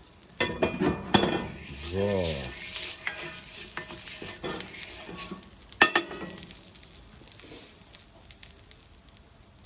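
Olive oil sizzling in a steel pan while a wooden spoon stirs and scrapes it, with sharp knocks of the spoon against the pan about a second in and again just before six seconds. The sizzle dies down over the last few seconds.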